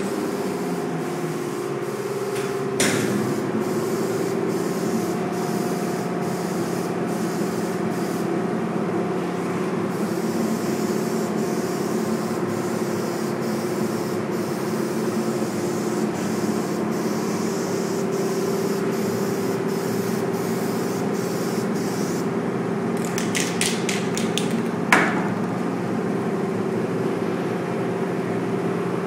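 Aerosol spray paint hissing steadily over a steady machine hum. A knock sounds about three seconds in, and near the end comes a quick run of clicks followed by a knock.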